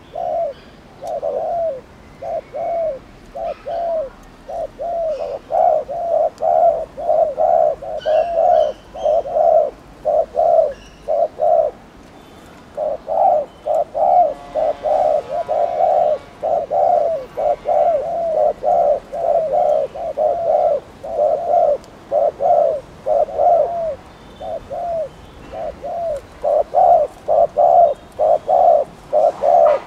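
Spotted dove giving its rapid 'gù' cooing call: short low coos repeated about two to three times a second in long runs, with a brief pause about twelve seconds in.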